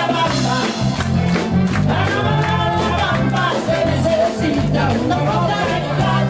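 Upbeat dance music with a singer over a steady beat and a moving bass line, played loud.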